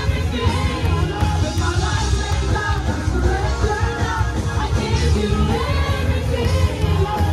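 Live church worship band with electric guitar and a strong, deep bass playing while a congregation sings loudly along, with shouts among the singing.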